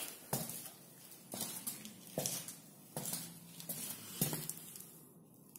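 Footsteps on a laminate floor, about one step a second, each a short knock, stopping near the end.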